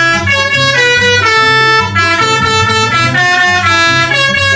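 Background music: a bright tune of changing notes over a steady low bass beat.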